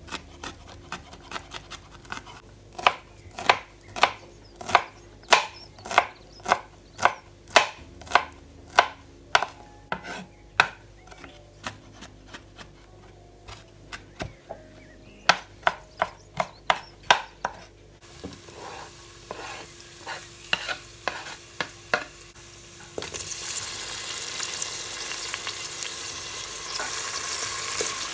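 A knife chopping on a cutting board in sharp, even strokes, about two a second. Near the end, food starts sizzling loudly as it fries in a pan.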